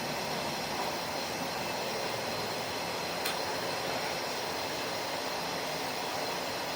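Steady rushing background noise, with one faint click about three seconds in.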